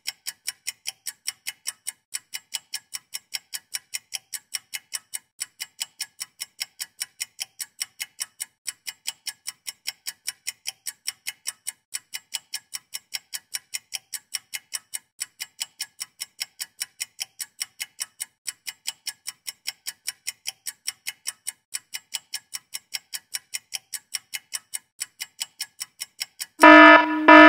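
Countdown-timer sound effect: quick, even clock ticking. Near the end a loud buzzer sounds in short blasts as the time runs out.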